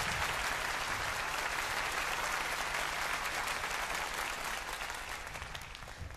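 Concert audience applauding, a dense steady clapping that thins out near the end.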